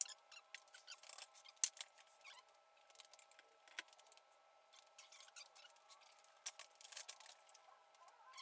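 Faint scattered clicks, taps and scratches of hand work with tools and lumber, a few sharper clicks among them, over a faint steady hum.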